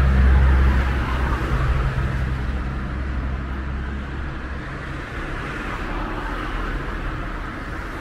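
A motor vehicle's engine running in the street: a low, steady hum that is loudest at the start and fades away after about four seconds, over general traffic noise.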